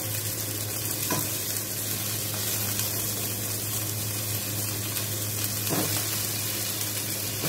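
Onions, tomatoes and lemongrass sizzling steadily in a stainless steel pan over medium heat, with two light knocks, about a second in and near six seconds.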